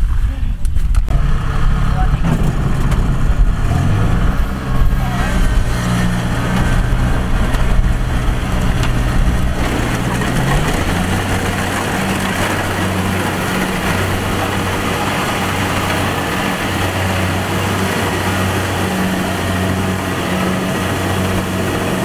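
Kubota rice combine harvester's diesel engine running loud and steady, its pitch rising a few seconds in, then settling into an even pulsing beat as the machine moves off through the paddy.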